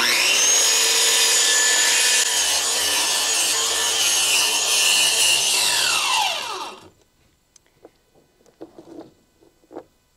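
Corded circular saw starting up and ripping a sheet of T1-11 smart siding lengthwise down its centre groove, running steadily for about six seconds, then winding down with a falling whine after the trigger is released. A few faint knocks follow.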